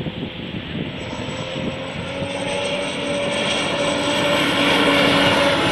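Racing hydroplane's engine running at speed across the water, growing steadily louder as the boat approaches, with a steady high whine over its tone.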